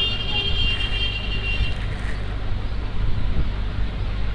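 Steady low background rumble, with a high whistling tone lasting about two seconds at the start.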